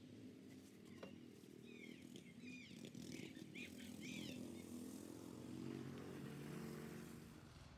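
Faint bird chirping: a quick run of short arched chirps from about two to four and a half seconds in, over a low steady hum.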